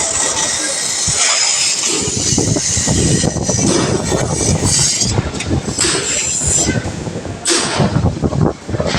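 CNC machine cutting: a continuous loud, harsh grinding screech with a rumble underneath. The high, hissing part is strongest in the first few seconds.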